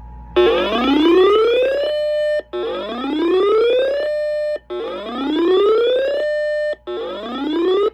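Emergency Alert System alert tone on an FM radio broadcast: a buzzy electronic whoop that rises in pitch for about a second and a half, holds briefly, and repeats four times, the fourth cut short.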